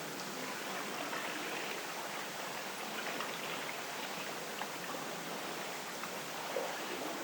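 Night-time seaside ambience of wind and water: a steady rushing hiss with a few faint scattered ticks.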